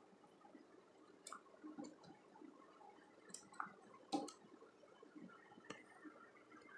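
Near silence with a few faint scattered clicks and small knocks from handling at an electrical starter panel, the sharpest about four seconds in.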